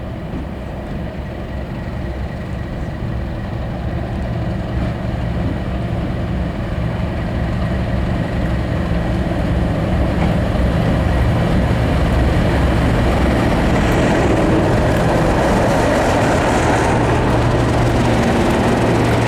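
English Electric Class 37 diesel-electric locomotive approaching with its V12 diesel engine running, a steady low rumble that grows louder over about ten seconds and then holds. A faint squeal comes in near the end as it draws into the platform.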